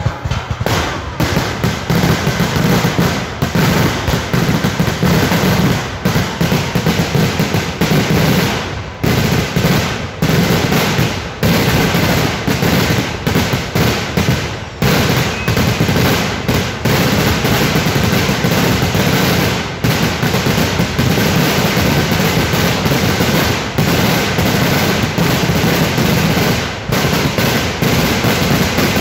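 Temple-festival fireworks (vedikettu): a dense barrage of firecracker explosions, the blasts following so closely that they run together, with only a few brief gaps.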